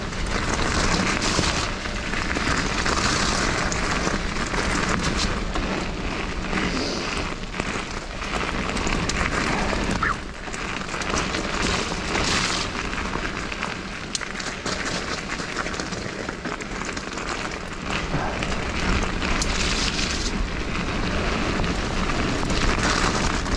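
Mountain bike riding fast down a wet dirt and gravel trail: a steady rush of tyres on the wet ground and wind buffeting the action camera's microphone, with frequent clicks and rattles from the bike over bumps.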